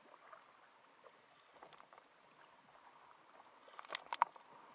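Kayak paddles dipping into lake water, with a faint splash every two seconds or so. A louder run of sharp clicks and splashes comes about four seconds in.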